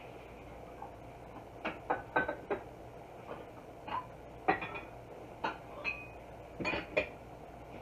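Glass lid rattling on a stainless steel pot of boiling rice, about ten irregular light clinks, some ringing briefly, as the boil lifts the lid.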